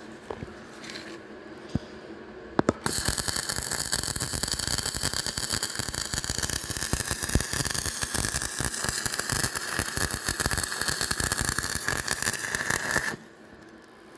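Electric welding arc crackling steadily as a weld is run, after a few sharp clicks. It starts about three seconds in and cuts off sharply about a second before the end, when the arc is broken.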